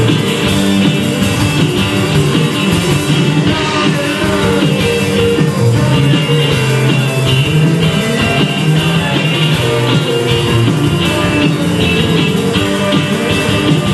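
A live rock band playing loudly and without a break: electric bass, drum kit, keyboard and violin.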